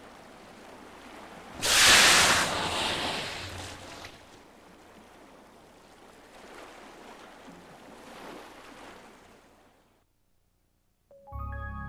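Killer whales surfacing and blowing: a loud rushing exhalation about two seconds in that fades over a couple of seconds, then fainter blows later, over the low wash of the water. The sound drops out, and soft music begins just before the end.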